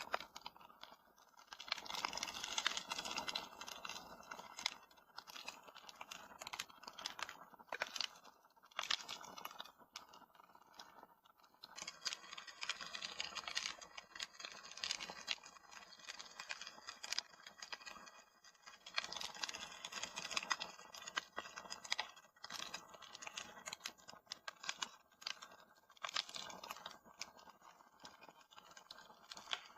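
Fire in a fireplace crackling steadily, with a soft hiss and frequent sharp pops and snaps.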